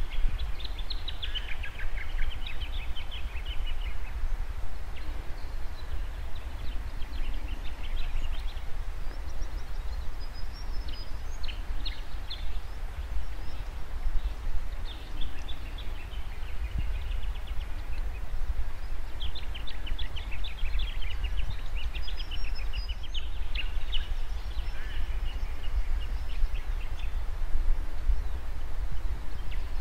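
Birds calling outdoors: several bouts of rapid trilling calls with a few high chirps, over a steady low rumble.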